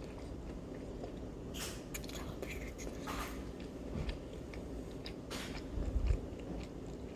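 Chewing and crunching of crisp fried egg rolls, with sharp crunchy bites about one and a half, three and five and a half seconds in. A few dull low bumps come just before the end.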